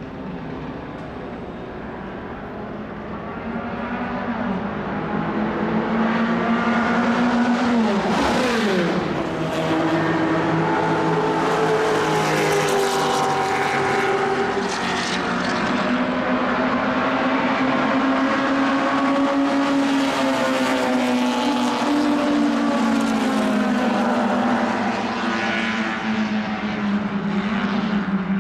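1960s racing car engines running at speed on track, growing louder over the first few seconds. About eight seconds in one passes with a quick drop in pitch, then engine notes rise and fall with the throttle.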